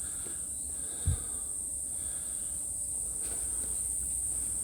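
Insects making a steady, high, unbroken drone, with a single dull low thump about a second in.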